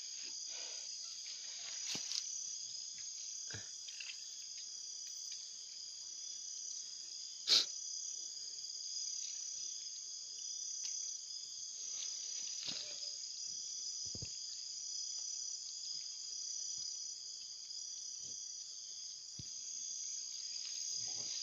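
Steady, high-pitched insect chorus with a pulsing beat, running on without a break. A few scattered knocks cut through it, the sharpest about seven and a half seconds in.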